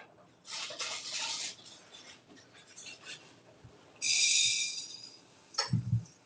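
A guinea pig's high, squealing wheek, held for about a second, about four seconds in. It comes after a brief dry rustling rattle near the start and before a sharp knock with a dull thump near the end.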